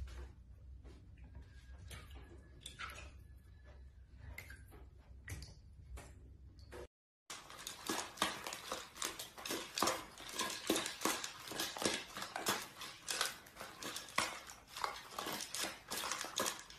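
Two long-haired dachshunds eating dry kibble from bowls: rapid, irregular crunching with kibble rattling against the bowls, starting after a brief cut about seven seconds in. Before that, a quieter low hum with a few faint clicks.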